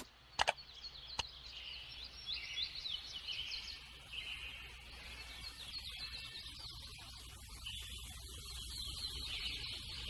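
Songbirds chirping and singing, many short rising notes and warbles overlapping, over a soft background hiss. A few sharp clicks come in the first second or so.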